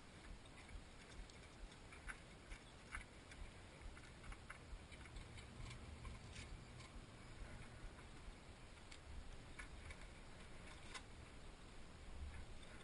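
Near silence, with faint scattered light clicks.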